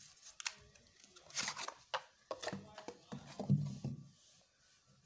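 Cardboard box rustling and scraping as its flaps are opened and a small sealed battery is slid out and handled, with short scrapes and a few clicks.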